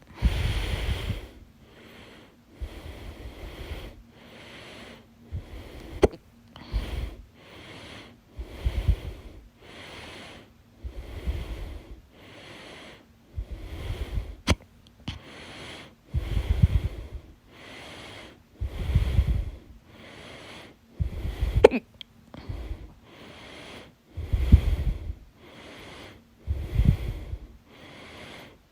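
A person hiccuping, with sharp, sudden hics among heavy, rhythmic breathing in and out, roughly a breath every second or so.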